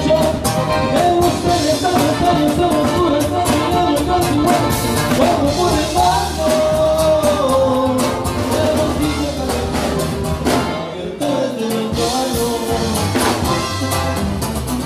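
Live Mexican banda music, bandeño style, played loud with brass and tuba over a steady dance beat, with singing.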